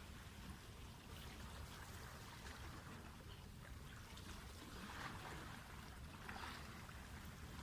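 Faint, even rushing of water with a steady low rumble underneath.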